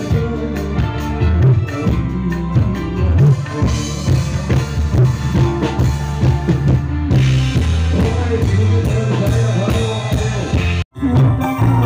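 Live orkes band music played loud through a PA sound system, with drum kit and heavy bass driving a steady beat. The sound cuts out for an instant about eleven seconds in, then the music picks up again.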